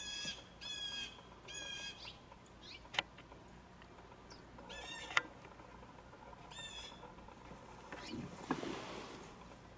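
Blue jays calling: a series of short, harsh calls, three in quick succession, then two more spaced a couple of seconds apart. Two sharp clicks fall between them, and there is a brief soft rustle near the end.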